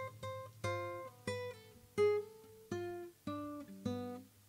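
Solo acoustic guitar: single plucked melody notes, about seven of them, each starting sharply and ringing away before the next, some over a low bass note.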